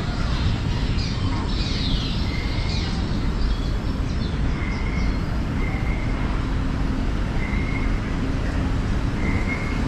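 Recorded bird calls piped through loudspeakers: short whistled chirps repeating every second or two, with a few sliding calls early on, over a steady dense hiss and rumble of tunnel ambience.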